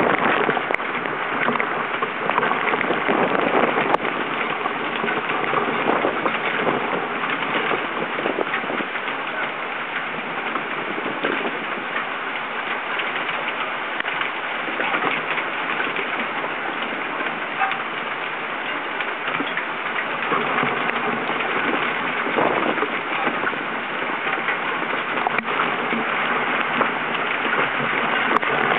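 Hurricane rain pelting a waterproof compact camera close to its microphone: a dense, steady patter of drops striking the camera body.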